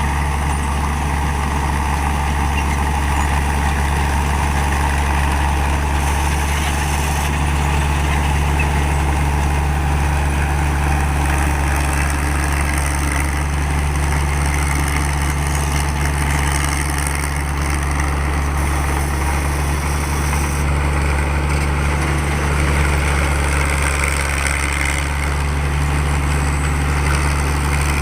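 A 225 hp Kaset Phatthana rice combine harvester running steadily while harvesting: a constant low engine drone with a dense wash of machinery noise over it.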